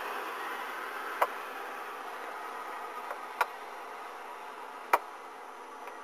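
Steady low hum and hiss with three sharp, separate clicks, a little over a second, about three and a half, and about five seconds in.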